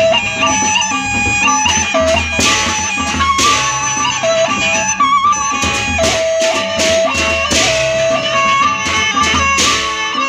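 Gendang beleq ensemble playing: a suling bamboo flute carries the melody in held notes over the large gendang beleq drums. Metal cymbal crashes come every second or two.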